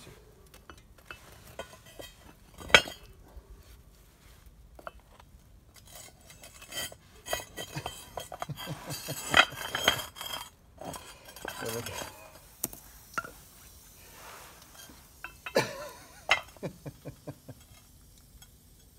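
A hammer striking a metal ingot mould to knock out freshly cast copper, giving a series of metallic clinks and knocks. The hardest blow comes about three seconds in, with busier runs of taps in the middle and again near the end.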